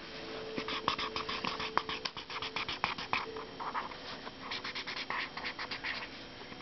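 Black marker scribbling rapidly back and forth on notebook paper, colouring in a drawing. The strokes stop for about a second near the middle, then start again.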